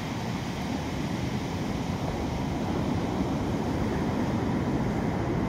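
Steady low rush of ocean surf and wind on the shore, growing slightly louder.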